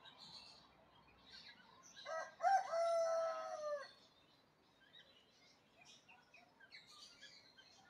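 A rooster crowing once, a drawn-out call lasting nearly two seconds that rises at first, holds and dips at the end, over faint chirping of small birds.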